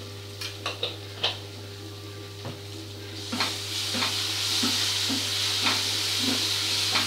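Egg chilli sizzling in a non-stick frying pan as a spatula stirs and knocks against the pan, after a few sharp clicks in the first second or so. The sizzle grows louder about three seconds in.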